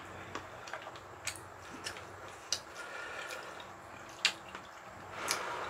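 Eating sounds at the table: a few sharp clicks of utensils against dishes, one louder about four seconds in, over soft wet sounds of eating noodle soup.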